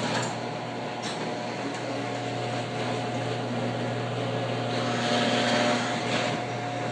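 A 1/2-horsepower garage door opener motor running, driving the door, with a steady low hum and a higher whine. The door won't open past partway, which the owner takes for a motor problem.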